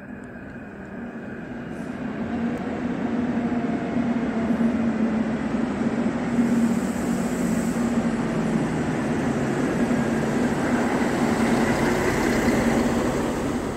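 Stadler Regio-Shuttle RS1 diesel railcar pulling into a station platform. Its steady engine hum and the rumble of its wheels on the rails grow louder over the first few seconds as it approaches, then hold steady as it rolls slowly past.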